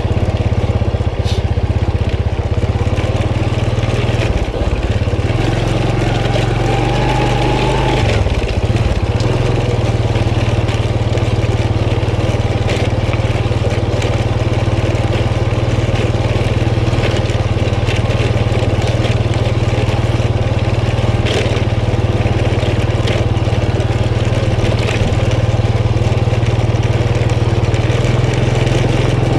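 Honda motor scooter's small single-cylinder engine running steadily at low speed, with scattered clicks and knocks from riding over a rough dirt track.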